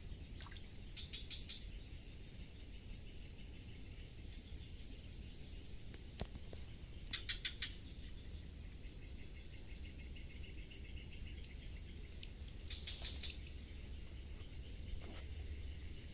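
A steady, high-pitched drone of insects. Three short, rapid chirping trills stand out over it, about a second in, around seven seconds and near the end.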